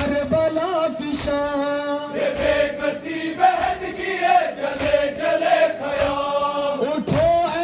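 Men's voices chanting a noha, a Shia mourning lament, in long held, sliding notes.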